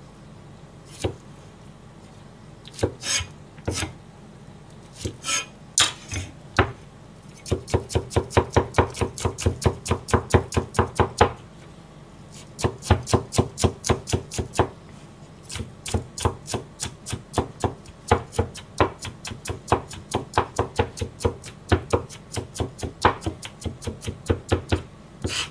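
Kitchen knife mincing garlic on a plastic cutting board: a few separate chops at first, then fast, even chopping at about five strokes a second, broken by a short pause about halfway through.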